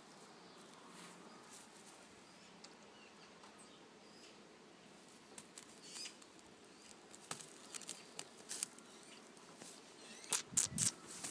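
Kittens scampering and scuffling: faint rustling and scratching with scattered light clicks, then a quick run of sharper clicks and a soft thump near the end.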